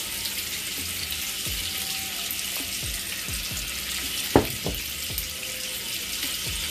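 Kielbasa slices sizzling in oil in a skillet: a steady frying hiss. A few brief low sounds and one sharp knock about four and a half seconds in break through it.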